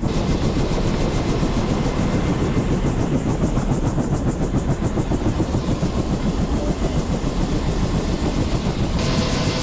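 Helicopter running: a steady engine and rotor rumble with a fast, regular pulsing throughout.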